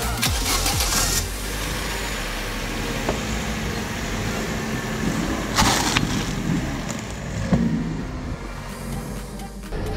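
A car running slowly over a board of upright wooden toothpicks, crushing them, with two short, louder crunches about five and a half and seven and a half seconds in. Background music is heard for about the first second.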